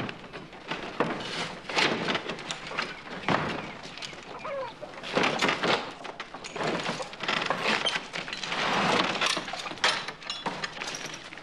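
Irregular wooden knocks and thumps from someone climbing down from and reaching into a horse-drawn farm wagon.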